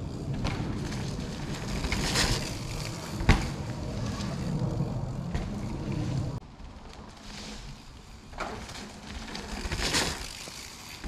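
Mountain bike tyres rolling on a dirt trail, swelling and fading as riders pass, loudest near the end as one goes by close. A low rumble stops abruptly about six seconds in, and there is a sharp knock about three seconds in.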